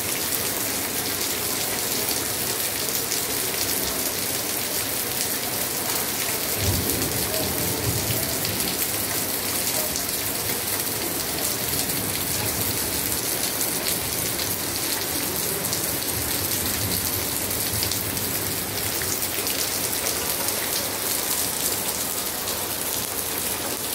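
Heavy rain falling onto a flooded concrete floor: a steady hiss of drops splashing into standing water. A brief low rumble comes about seven seconds in.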